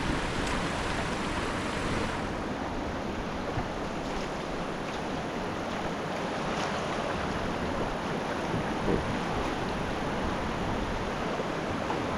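Steady rush of fast-flowing high-water river water.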